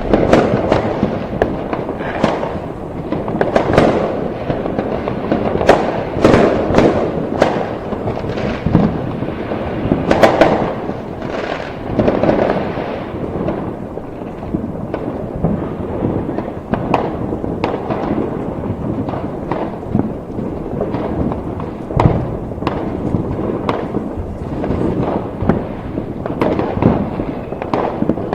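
Fireworks going off continuously: a dense, overlapping barrage of sharp cracks and bangs over a constant rumble. The louder bangs come about two to four times a second.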